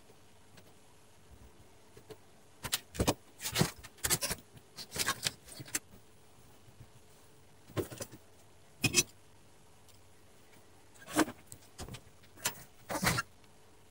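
Clicks, clinks and rattles of the television's circuit board and tools being handled, in several short bursts with quiet gaps between them.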